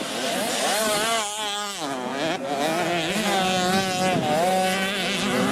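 Two-stroke 65cc motocross bike engines racing, revving high and falling away as the riders work the throttle. The pitch wavers up and down and drops sharply about two seconds in.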